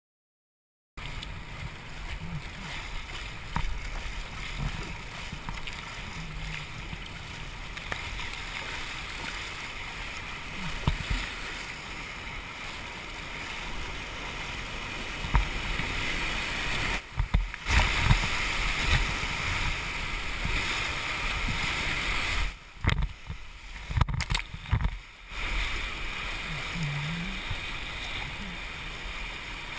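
Whitewater rapids rushing loudly around a kayak, picked up by a helmet-mounted GoPro, with knocks and splashes from the paddle and hull. It starts suddenly about a second in, and the sound cuts out sharply a few times past the middle.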